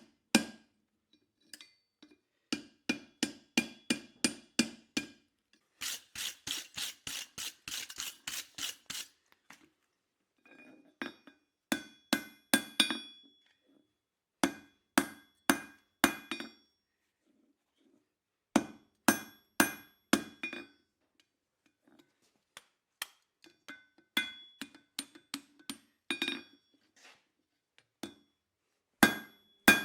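Blacksmith's hammer striking hot round-bar steel on an anvil, in runs of blows with short pauses between, many strikes leaving a bright metallic ring. A few seconds in comes a quicker run of duller blows.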